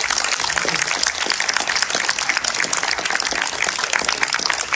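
An audience applauding, many hands clapping in a dense, steady patter.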